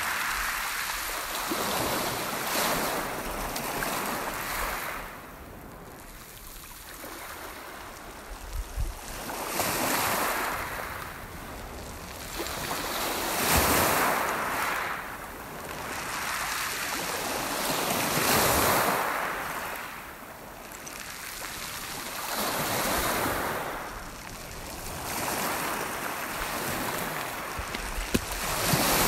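Lake waves breaking and washing up a pebble beach, the surf swelling and fading in surges every few seconds, with some wind on the microphone.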